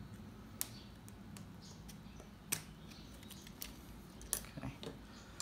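Small, sharp clicks as a screwdriver pries at the plastic spring holders of a Speedplay cleat and the parts are handled, about five separate clicks spread across the few seconds.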